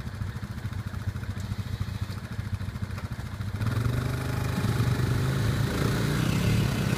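ATV engines idling, then about three and a half seconds in the engine gets louder and revs under load as one ATV pulls a stuck ATV back out of the mud.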